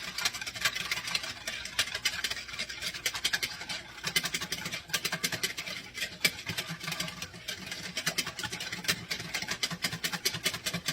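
A wire whisk beating a liquid sauce in a bowl: rapid, continuous clicking and scraping of the whisk against the bowl.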